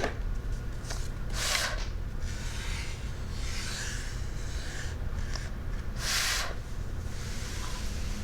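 Fingertips rubbing across a sandpaper letter, a soft scratchy stroking, with two short breathy puffs, one about a second and a half in and one about six seconds in. The puffs are the letter sound "p" said as it is traced.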